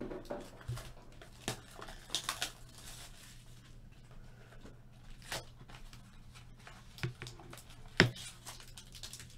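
Trading-card packaging being handled and opened: wrapper tearing and crinkling, with scattered small clicks and taps and one sharper knock about eight seconds in.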